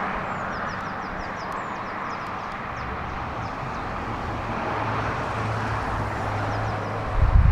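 Steady outdoor rumble with a low engine hum that grows a little stronger partway through, and small birds chirping over it. Loud, low, uneven buffeting starts just before the end.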